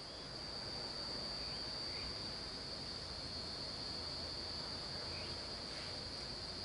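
Night insects trilling, a single steady high-pitched trill that does not break, over faint outdoor hiss.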